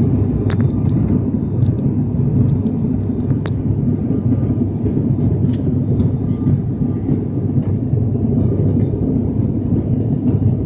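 Steady drone of an ATR 72-600's turboprop engines and propellers, heard inside the cabin as a low hum. A few light clicks sound over it in the first few seconds.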